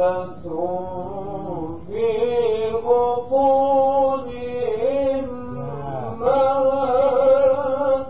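A man reciting the Quran in the melodic mujawwad style, holding long ornamented notes that waver in pitch across several drawn-out phrases with brief breaks between them.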